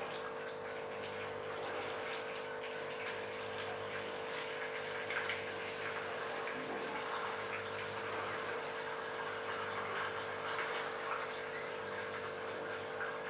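Water poured in a steady stream into a shallow plastic dish, splashing and trickling as the dish fills.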